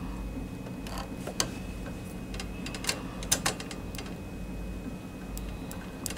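Scattered sharp clicks and ticks of a screwdriver and small metal and plastic parts being worked while screws are fitted to a dot matrix printer's print head, over a steady low hum.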